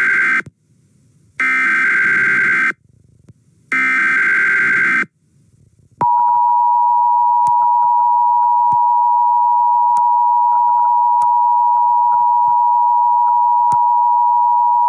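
Emergency Alert System SAME header: three harsh, buzzing digital data squawks of about a second each, the first already under way, with short gaps between them. About six seconds in, a long steady single-pitch alert tone starts and holds.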